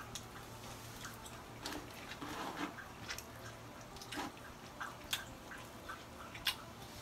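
Close mouth sounds of people eating sticky rice and fish by hand: chewing with scattered small clicks and lip smacks, over a steady low hum.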